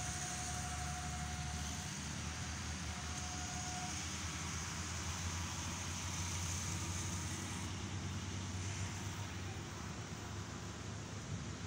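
Diesel-electric locomotive engine running with a steady low rumble as the train approaches. A faint high hiss in the background drops away about eight seconds in.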